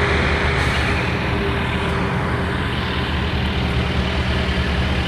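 Truck engine idling, a steady low drone with an even noise over it.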